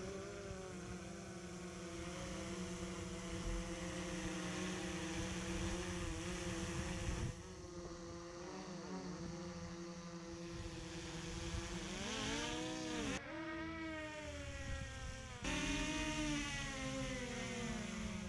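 DJI Mavic Pro quadcopter hovering close overhead, its propellers giving a steady multi-toned buzz. The pitch swoops up and back down a little past halfway and shifts again shortly after, as the motors adjust while it is brought down and caught by hand near the end.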